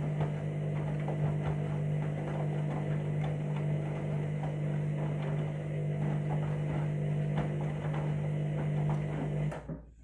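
Front-loading washing machine turning its drum through a wash: a steady motor hum, with water and wet laundry sloshing and knocking inside. The motor cuts off suddenly near the end as the drum comes to a stop.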